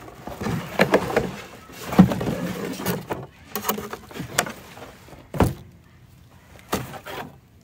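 A cardboard shipping box and its packaging being handled and shifted on a table: a run of knocks and thumps with scraping and rustling, the loudest thump about two seconds in.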